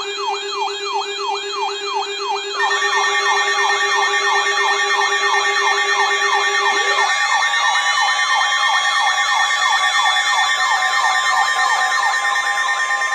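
Electronic emergency alert tone: rapid rising siren-like sweeps, about three a second, layered over steady tones, with more layers of tone joining about two and a half seconds in and a low tone dropping away about seven seconds in.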